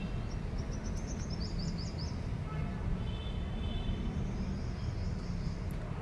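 Small birds chirping, with a quick run of high notes in the first two seconds, a short whistled note around the middle and more high calls later, over a steady low rumble.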